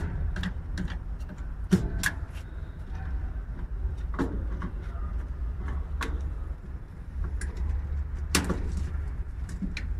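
Scattered sharp clicks and knocks of hands and parts touching inside a metal electrical control cabinet, about seven in all, the loudest about two seconds in and near the end, over a steady low rumble.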